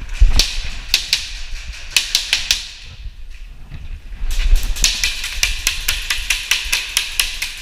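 Airsoft gun fire in close quarters: a few sharp snaps, a short run of them about two seconds in, then a quick string of snaps, about six a second, from about four seconds in.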